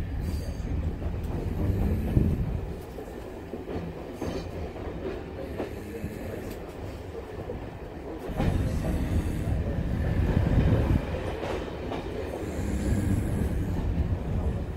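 Diesel train heard from inside its passenger saloon while running along the line: a steady low rumble with clicks from the wheels over rail joints. The rumble eases about two and a half seconds in and grows louder again just after eight seconds.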